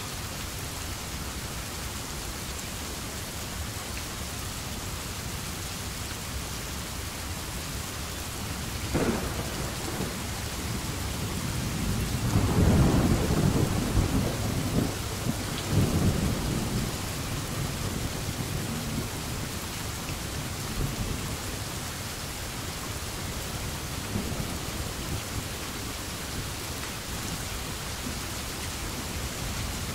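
Steady rain with a thunderclap: a sudden crack about a third of the way in, then a low rolling rumble that swells twice and dies away, leaving the even hiss of the rain.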